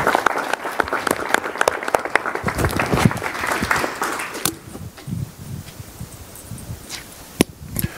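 Audience applauding, dense for about four and a half seconds, then dying away to a few scattered claps.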